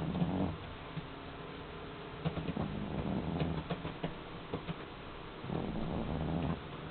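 A sleeping cat snoring: three rattly breaths, one at the start, one about two seconds in and one near the end.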